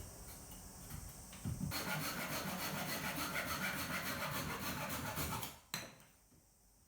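A rough scraping noise lasting about four seconds, then a single sharp knock.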